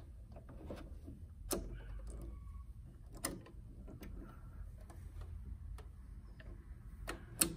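A few sharp plastic-and-metal clicks from the buttonhole foot being handled and snapped onto the presser-foot holder of a Janome 1050DC sewing machine, the loudest click near the end as the foot seats on the bar.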